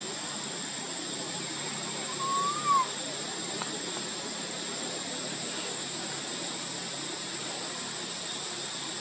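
Steady outdoor hiss with a thin high whine throughout; about two seconds in, one short squeak that rises and then falls, from a young long-tailed macaque.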